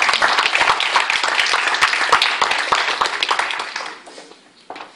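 Audience applauding, the clapping dying away about four seconds in, with one stray clap near the end.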